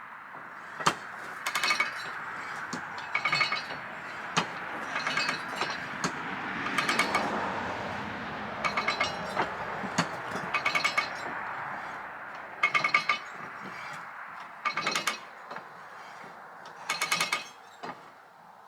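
Old sawmill log carriage being hand-cranked along its track: a steady grinding rattle with bursts of metallic clinking about every two seconds.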